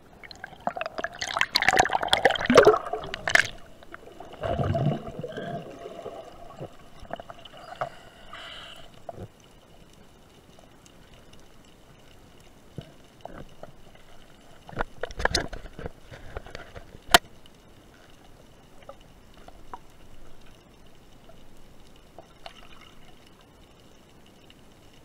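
Underwater sound picked up by a camera in its housing during a freedive: loud water rushing and bubbling over the first few seconds as the diver dives down, then quieter water movement with scattered clicks, a short burst of bubbling about fifteen seconds in, and a faint steady high tone.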